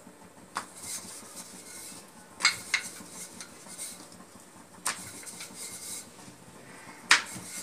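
Wooden rolling pin working thick roti dough on a round rolling board: a low rubbing with about five sharp knocks and clacks as the pin and board shift, the loudest near the end.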